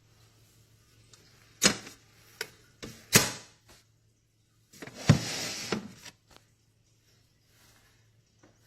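Small biometric pistol safe being handled: several sharp clicks and knocks in the first few seconds, then a scraping noise lasting about a second with clicks in it.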